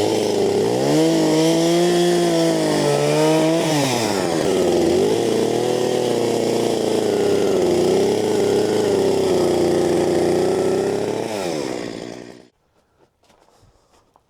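An engine running at varying speed, its pitch rising and falling several times, cutting off suddenly near the end.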